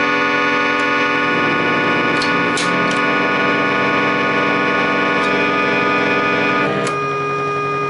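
Colton Industries fan-blown air organ sounding sustained chords, many notes held at once with a few soft key clicks as notes change. About seven seconds in, most of the higher notes stop and a few low tones keep sounding.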